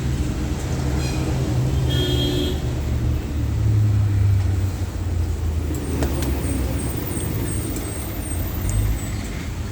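Steady low rumble of motor vehicles, with a brief higher-pitched tone about two seconds in.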